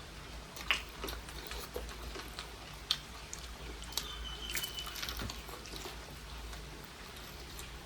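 A person eating: chewing and mouth smacks with scattered short clicks, over a low steady background hum.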